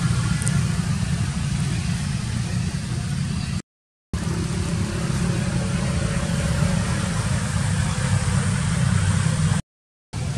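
Steady low outdoor rumble, loudest in the bass, with no distinct pitch. It cuts out to silence twice, briefly, about three and a half seconds in and near the end.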